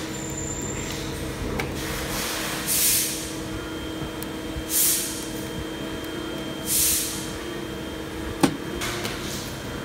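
Hydraulic embossing press running with a steady hum, with three short hisses about two seconds apart and a single sharp click near the end.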